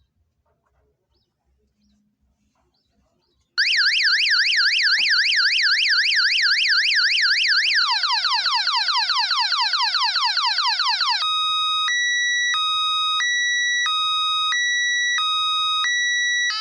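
Multi-tone electronic alarm siren sounding after a few seconds of near silence: first a fast warble, then about four seconds in it switches to rapid falling sweeps, and later to a two-tone hi-lo alternation about once every second and a half. It is the kind of siren horn that a motion-sensor security alarm sets off when triggered.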